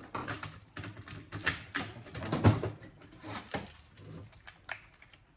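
Clicks, knocks and rattles of metal and plastic parts being handled and pried apart while an electronics unit is dismantled for scrap, with a louder knock about two and a half seconds in.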